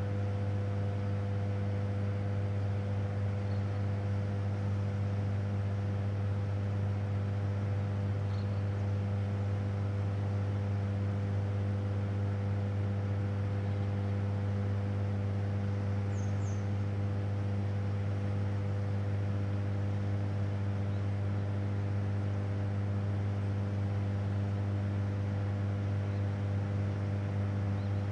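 Hydroelectric power station machinery giving a steady, deep electrical hum with a few fainter higher tones above it, unchanging throughout. A couple of faint high chirps come through, once about a third of the way in and again past halfway.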